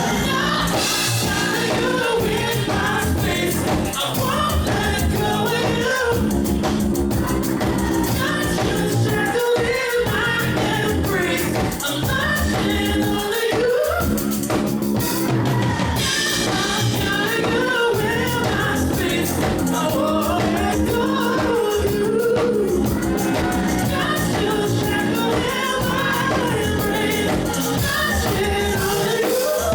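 Live pop song performance: a lead vocalist sings a winding melody over a steady drum beat and bass.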